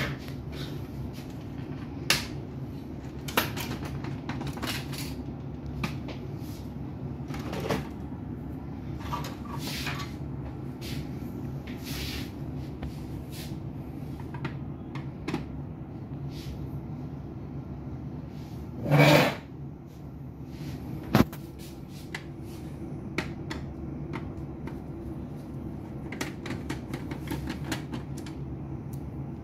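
Scattered clicks, taps and knocks of a screwdriver and the plastic and metal parts of an HP LaserJet laser printer being taken apart by hand, with one louder clunk about two-thirds of the way through, over a steady low hum.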